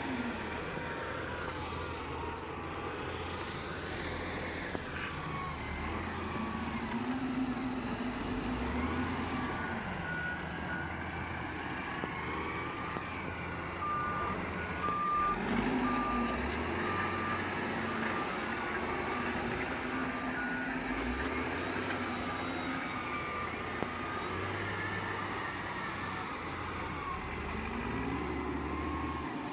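Mahindra backhoe loader's diesel engine running and revving up and down as it works, with its reversing alarm beeping in runs, most steadily through the middle of the stretch.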